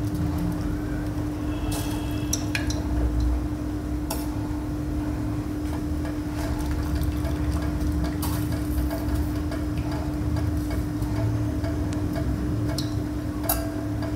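Steel tongs clinking against steel pots as blanched spinach is lifted, dripping, out of hot water and dropped into a bowl of ice water. There are a few sharp clinks over a steady low hum.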